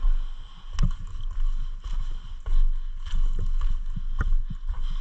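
Irregular low thumps and rustling with a few sharp clicks: movement noise picked up by a camera worn by an airsoft player on the move.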